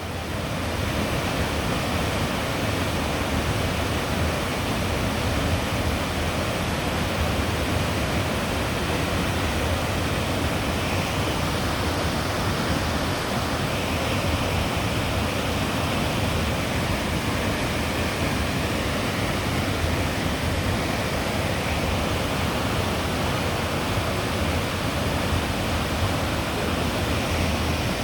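Jōren Falls, a waterfall, pouring down in a steady, unbroken rush of falling water.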